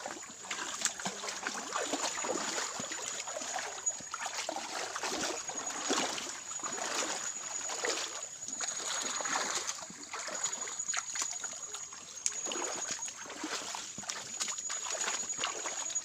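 Feet wading through shallow, flowing creek water, with repeated irregular splashes as each leg moves through the water.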